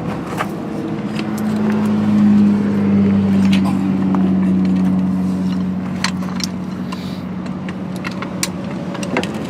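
A vehicle engine running with a steady low drone that swells for a few seconds and then eases, with scattered metallic clinks of hand tools working on a trailer tire.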